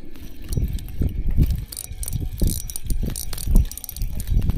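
Fishing reel being cranked with a rattling, clicking whir as a hooked fish is reeled in, over irregular low rumbling.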